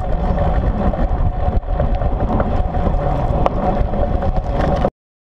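Wind buffeting a camera mounted on a moving child's bicycle, mixed with the rumble and rattle of the bike rolling, with a few small knocks; it cuts off suddenly near the end.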